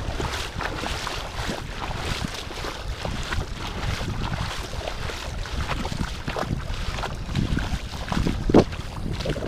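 Footsteps splashing through shallow seawater over sand, with wind buffeting the microphone.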